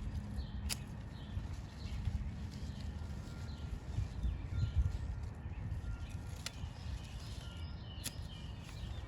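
Scissors snipping onion leaves: three sharp snips, one near the start and two near the end, over a low steady rumble and faint birdsong.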